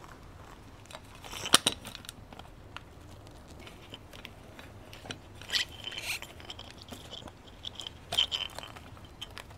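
Plastic tail tidy bracket and its wiring being handled as wires are pushed through a rubber grommet: scattered small clicks, crackles and rubbing, with one sharp click about a second and a half in and short clusters of clicks around six and eight seconds.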